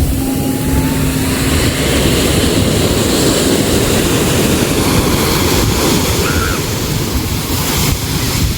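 Sea water rushing and washing, with wind buffeting the microphone in a steady loud noise. A low steady hum fades out about two seconds in.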